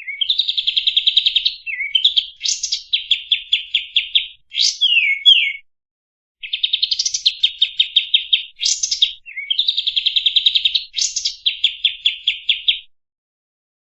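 Kapas tembak songbird singing a varied song: fast rattling trills of rapidly repeated notes broken by quick upswept whistles, with a short pause about six seconds in and falling silent near the end.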